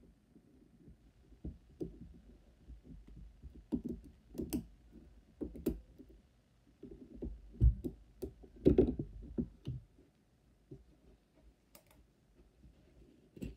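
Irregular light clicks, taps and rubbing from steel hemostats and gloved hands working at a plastic typodont as a brass wire separator is pulled out from between the teeth, with a couple of heavier bumps a little past the middle.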